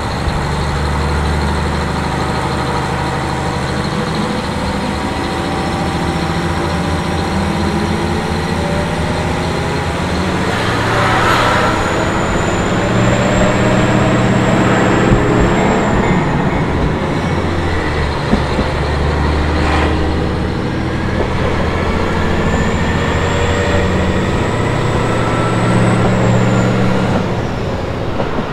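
KiHa 40 diesel railcar heard from on board, its diesel engine running under way with steady running noise, the engine note shifting in pitch. Twice a high, thin squeal rises and holds for a few seconds, and a couple of brief knocks come through.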